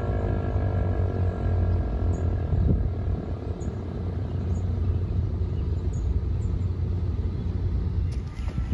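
An ASC T-128 outdoor warning siren winding down, its stacked falling tones fading out within the first couple of seconds. A steady low rumble remains, with a few clicks near the end.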